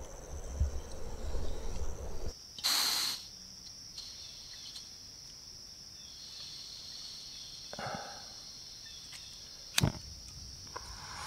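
Insect chorus: a steady high-pitched drone through the woods. There is a short hissing burst about three seconds in and a single sharp click near the end.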